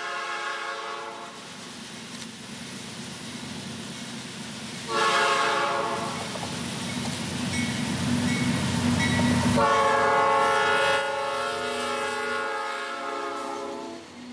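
Norfolk Southern diesel locomotives, a GE Dash 9-44CW leading an EMD SD60E, sounding the air horn as they approach and pass: a blast ending about a second in, a short blast about five seconds in, and a long blast from about ten seconds in almost to the end. Under the horn the rumble of the locomotives grows as the lead unit comes by.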